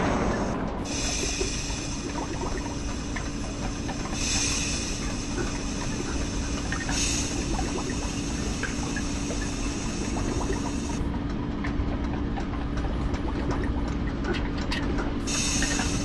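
Machine sound effects of pipes and pumps: a steady low hum under steam-like hissing that swells several times. About two-thirds through the hiss drops away, leaving scattered clicks and ticks, then the hiss returns near the end.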